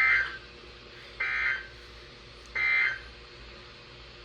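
Emergency Alert System end-of-message signal: three short bursts of harsh, buzzing SAME digital data tones, each about half a second long and a little over a second apart. They mark the end of the weather radio alert.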